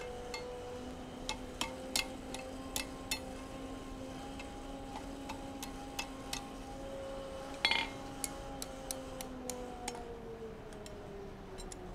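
Light hammer taps on a red-hot steel staple being shaped on the anvil horn and face: a dozen or so sharp, irregular ticks, with one louder ringing strike about two-thirds of the way in. A steady hum runs underneath.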